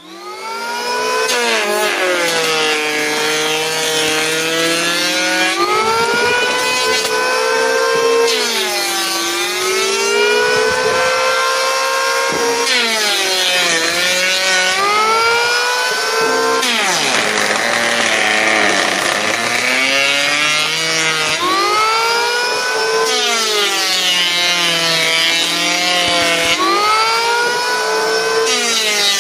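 Motor-driven wood planer running, its pitch dropping and recovering again and again as it comes under load while cutting.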